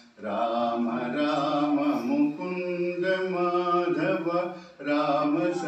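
A man chanting a devotional hymn in long, steadily held notes, in phrases with a short pause for breath about four and a half seconds in.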